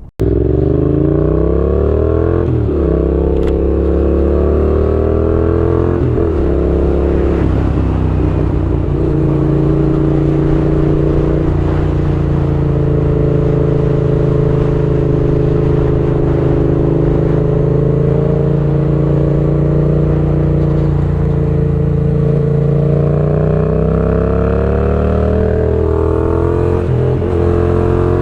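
Yamaha MT-07's 689 cc parallel-twin engine running loud through a Mivv GP exhaust with no baffles or catalytic converter. Its pitch climbs and drops back twice in the first few seconds, then holds steady for a long stretch before wavering near the end.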